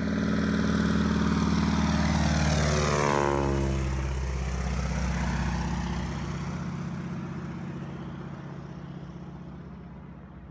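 Single-engine floatplane flying low past, its engine and propeller drone dropping sharply in pitch about three seconds in as it goes by, then fading into the distance.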